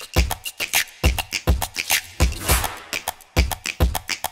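Short beatbox-style percussion beat for a logo intro: deep kicks landing in pairs about half a second apart, with quick snappy hi-hat-like clicks filling the gaps.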